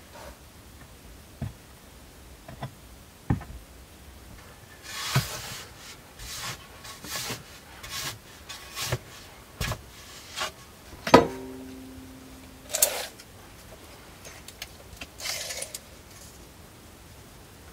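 Objects being handled and moved about: scattered clicks, short rubbing and rustling sounds, and one loud knock about 11 seconds in that rings briefly afterwards.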